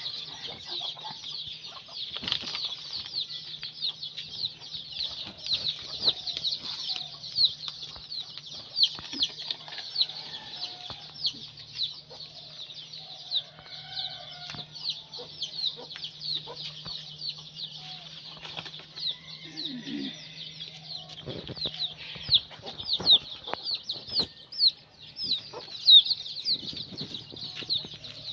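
Chickens in the yard: a constant run of short, high, falling chirps, several a second, with a few lower clucks mixed in. Scattered light knocks and a steady low hum lie underneath.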